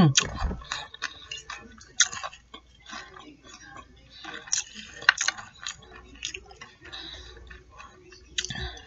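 Close-miked mouth chewing food that has been dipped in sauce, with irregular wet smacks and clicks, several a second.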